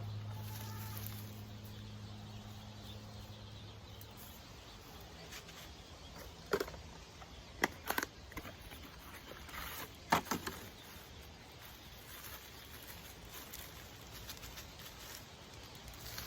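A few short, sharp scrapes and knocks of soil being worked by hand while an iris is planted and its roots covered, over faint outdoor background. A low steady hum fades out about four seconds in.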